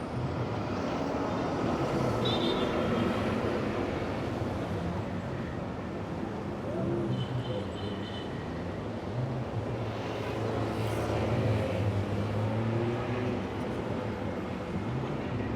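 Busy city street traffic: a steady wash of tyre and engine noise from passing cars, with a low engine hum rising and falling. A couple of brief high squeaks come through, about two seconds in and again near the middle.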